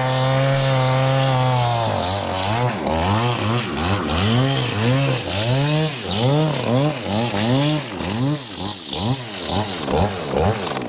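Large Husqvarna chainsaw engine held at high revs for about two seconds, then dropping and being revved up and down over and over, about one and a half times a second.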